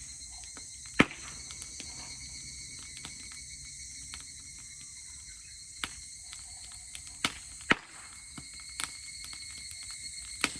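Dry-grass campfire crackling, with a handful of sharp pops, the loudest about a second in, over a steady high chorus of insects.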